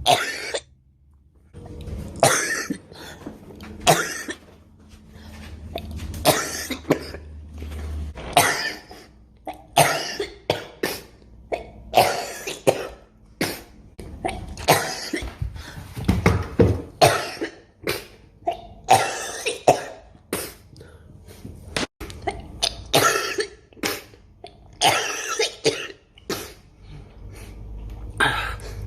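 Human coughing: dozens of short, sharp coughs in quick runs of two to four, from a string of spliced clips, with a low background hum that cuts in and out abruptly between clips.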